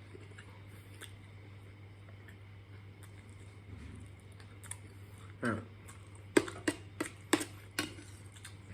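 A person eating: a brief vocal sound, then about five sharp clicks or crunches over roughly a second and a half, over a low steady hum.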